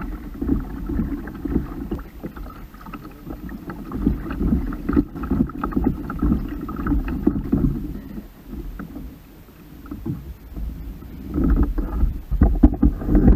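Water sloshing and splashing against the hull of a Hobie Pro Angler 12 fishing kayak moving slowly through choppy water, with wind rumbling on the microphone. A few louder knocks near the end.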